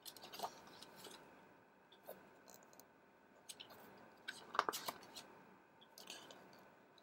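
Pages of a paper photo-book album being flipped and handled: faint, irregular paper flicks and rustles, with a brief vocal sound from the person about two-thirds of the way through.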